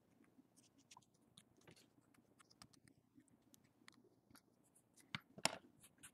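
Faint small clicks and scratches of fingers picking adhesive tape off a small metal phone bracket, with a few louder sharp taps near the end as the bracket is laid down on the wooden desk.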